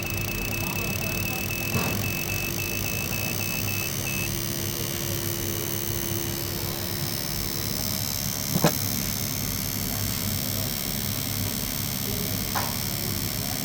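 Steady mechanical running noise with a few short, sharp metallic clinks, about a second in, near the middle and near the end.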